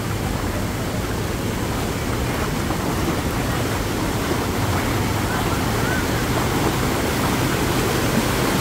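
A swollen, muddy river in flood rushes and churns over the ground and around tree trunks. It makes a steady, loud rush of water that grows slightly louder toward the end.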